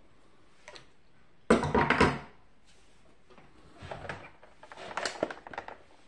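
A plastic box fan being handled and set down on a plastic sheet, giving knocks and rattles. The loudest clatter comes about a second and a half in, with smaller knocks around four and five seconds.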